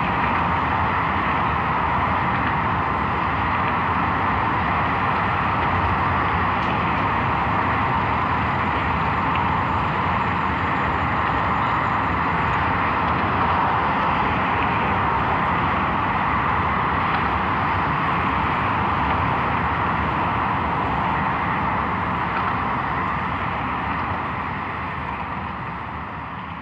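Dense, steady wash of noise from a live mix of tape loops and an outdoor microphone's street sound, with a traffic-like rush; it fades out over the last few seconds.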